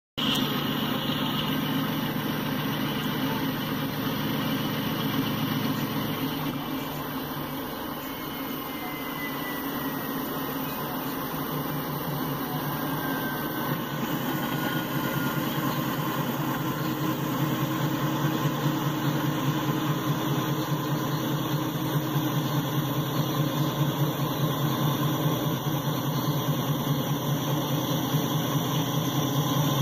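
Several Norfolk Southern diesel locomotives running under power as they pass on a freight train, a steady engine drone. A faint falling squeal comes partway through.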